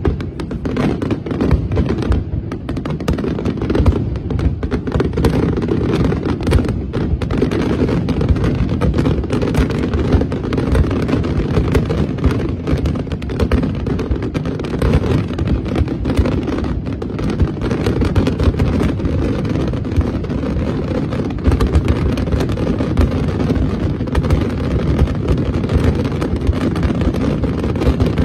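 Aerial firework shells bursting in a dense, continuous barrage: rapid sharp cracks over a steady low rumble.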